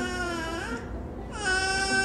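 Six-month-old baby girl making long, drawn-out sing-song vowel sounds as she drifts off to sleep. One held note trails off under a second in, and another starts about a second and a half in.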